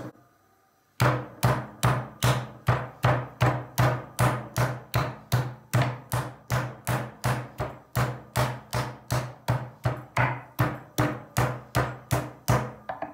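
Flat metal meat pounder slapping a chicken chop on a wooden cutting board, striking the skin side to flatten and tenderize it without tearing the meat. A steady run of sharp thuds, about three a second, starting about a second in.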